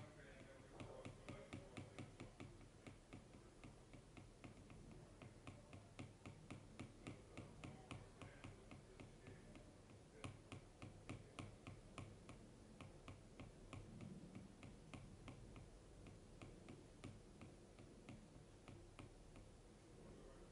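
Apple Pencil tip tapping repeatedly on the iPad Pro's glass screen while dabbing on highlights, about three or four light clicks a second.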